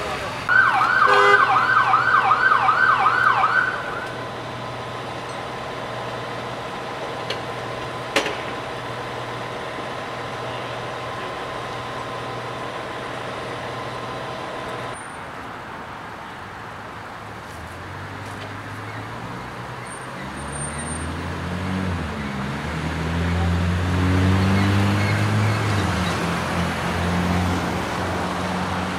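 Emergency vehicle siren in a fast yelp, sweeping up and down about three times a second for roughly three seconds. Steady street noise follows. From about two-thirds of the way in, a vehicle engine runs at a low rumble, its pitch rising and falling as it revs.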